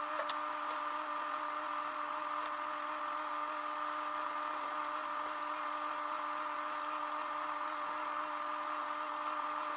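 Excavator running steadily at low speed: a constant machine hum with a steady whining tone.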